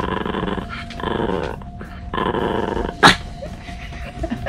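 A small long-haired dog 'talking' in three drawn-out, rough, growly grumbles, then one short, loud, sharp sound about three seconds in.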